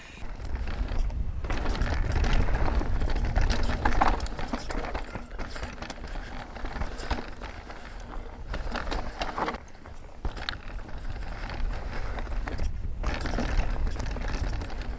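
Mountain bike ridden along dirt singletrack: tyre noise and the bike's clatter and rattle over bumps, with wind rumbling on the camera's microphone. The noise dips briefly about a second and a half in, and again near ten and thirteen seconds.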